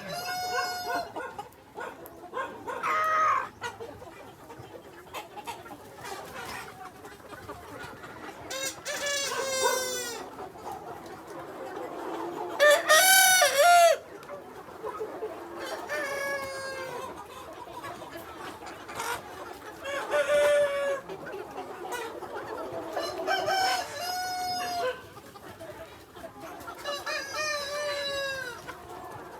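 Free-range village roosters crowing again and again, about eight crows each lasting a second or two, the loudest about halfway through.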